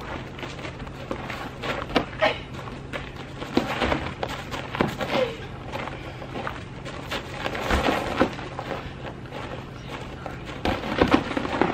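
Scattered knocks and scuffs from two people sparring with inflatable vinyl boxing pillows, shoes shuffling on gravel, with a few short vocal sounds, over a steady low hum.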